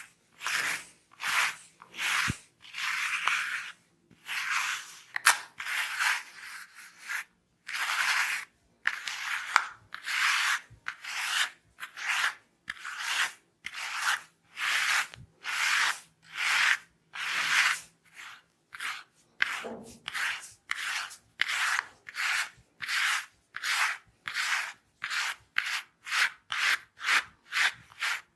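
Head massage: repeated rubbing strokes through the hair and over the scalp, long and slower at first, then shorter and quicker, about two a second, in the last third.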